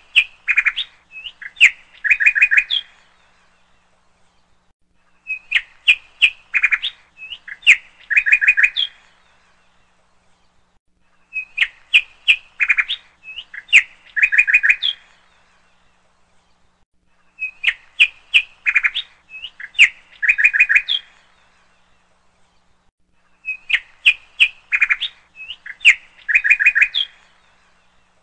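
A short recording of bird chirps and quick trills played on a loop. The same phrase repeats about every six seconds with silence between.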